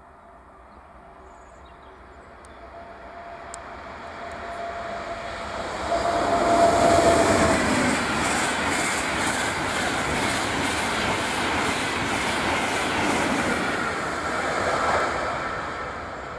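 Frecciarossa high-speed train passing at speed: a rushing noise that builds for about six seconds to its loudest, then a quick regular beat as the carriages' wheels go by, dying away near the end.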